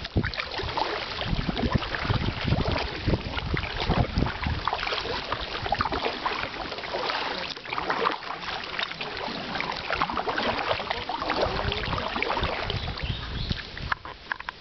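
Kayak paddles splashing and dripping as they dip into calm canal water, with water washing along a canoe hull built of plastic bottles. Wind rumbles on the microphone in the first half.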